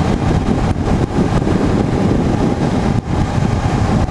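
Honda CBR500's parallel-twin engine running at road speed, mixed with wind rushing past the microphone, with a brief dip in level about three seconds in.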